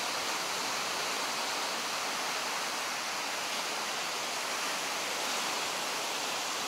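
Ocean surf breaking on the shore, heard as a steady, even hiss.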